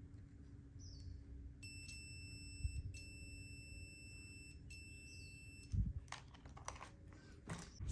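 Digital multimeter's continuity buzzer giving a steady high beep for about four seconds, broken twice briefly, while its probes touch the leads of a tattoo-machine coil: the coil winding conducts, reading a few ohms. A few light clicks and taps of the probes being handled follow near the end.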